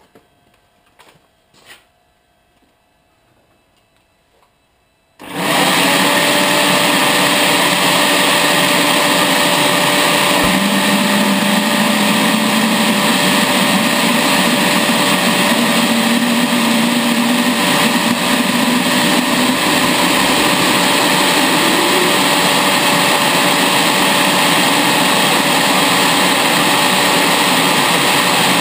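A few light clicks, then about five seconds in a handheld electric blower switches on at the compressor intake of a homemade turbojet built from a small turbocharger: a loud, steady rushing whine as the air spins the turbo up before ignition. Underneath, a fainter tone slowly rises in pitch.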